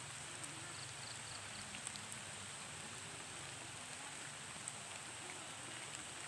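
Steady rain falling on a paved path and the surrounding trees and grass: an even hiss with a few scattered drop ticks.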